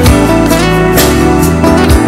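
Music: a song with guitar, with a steady beat landing about once a second.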